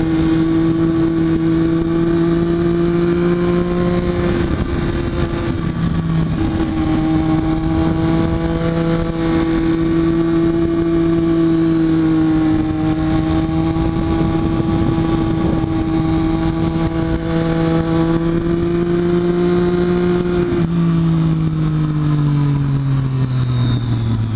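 Triumph Daytona 675R's inline three-cylinder engine held at steady revs, with two brief dips early on. Near the end its pitch falls steadily as the revs come down.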